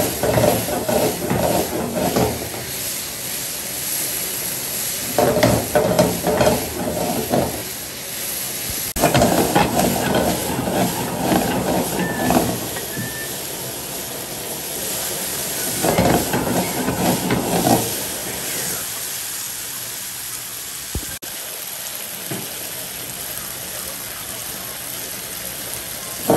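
Stir-fry sizzling in a hot pan: a steady hiss broken by several spells of louder scraping and clattering as the food is stirred.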